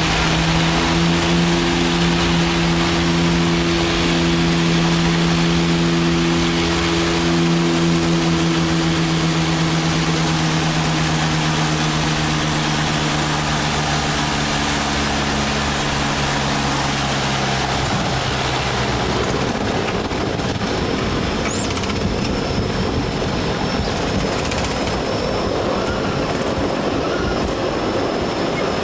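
Light aircraft's engine and propeller droning, heard from inside the cabin, the pitch sinking slowly as power comes back on final approach. About two-thirds of the way through, the engine tone drops away and a steady rumbling noise carries on as the plane lands.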